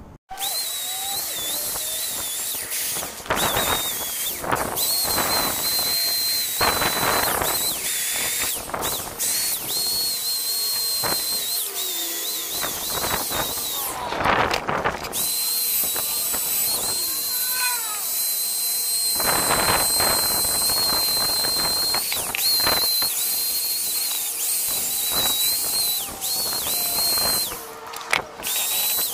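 Wire wheel grinder running against an alloy wheel rim, stripping heavily oxidized, many-layered paint: a steady high whine over a scratchy hiss. The whine drops out briefly about halfway through and again near the end.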